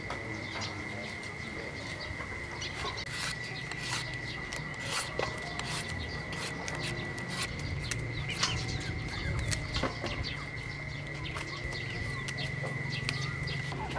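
Sharp clicks and snaps of water spinach stems being broken by hand, with knife cuts on fruit, over a steady high-pitched hum. Chickens clucking and small birds calling in the background.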